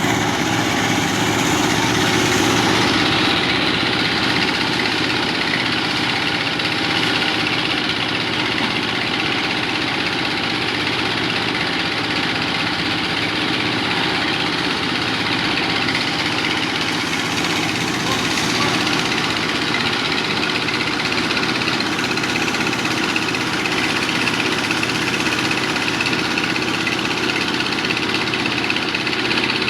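A construction-site engine running steadily at an even speed, with a slightly brighter hiss in the first few seconds.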